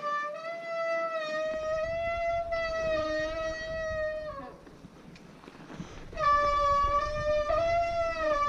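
Mountain bike disc brake squealing: a loud, steady high-pitched howl that drops out for about two seconds midway, then starts again.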